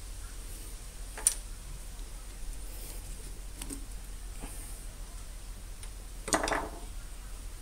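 Small handling noises from an old wrench and a broken piece of its wooden handle: a sharp click about a second in, and a short louder sound near six seconds, over a faint steady hum.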